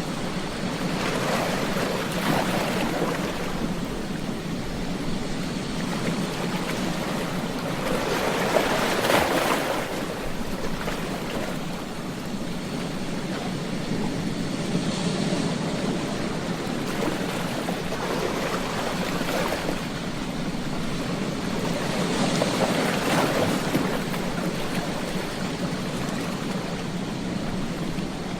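Ocean waves breaking and washing on a beach: a continuous surf rush that swells three times as waves break, the loudest about a third of the way in.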